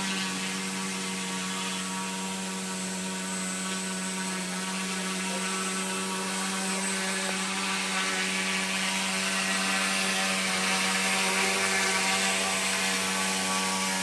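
Model helicopter's O.S. 95AX two-stroke glow engine running steadily in a hover, a constant engine tone under rotor noise, getting slightly louder about eight seconds in.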